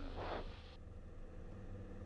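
Grumman Tiger's four-cylinder Lycoming engine at full takeoff power during the takeoff roll, a steady low hum, recorded through the cockpit audio. The last word of speech ends just after the start, and a layer of hiss cuts off suddenly under a second in.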